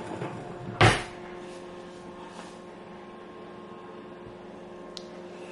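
A single sharp knock about a second in, over a steady electrical hum, with a faint click near the end.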